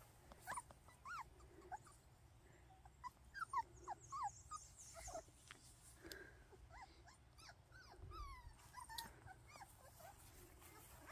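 Young Miniature American Shepherd puppies, about five weeks old, giving many short, high whines and yips in quick succession.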